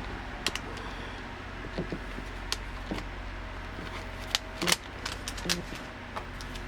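Scattered sharp taps and clicks of stationery and packaging being handled, a small cluster of them near the end, over a steady low hum.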